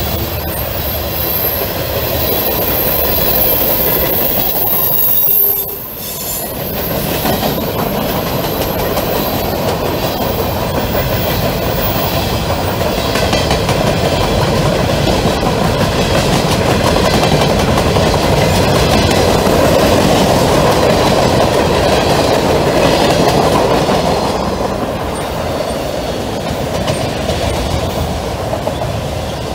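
Freight cars of a fast Norfolk Southern mixed freight rolling past at speed: steel wheels rumbling and clicking on the rails, with a brief dip in the noise about six seconds in.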